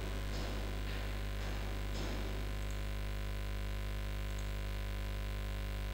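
Steady low electrical hum, mains hum picked up on the microphone line, with no speech.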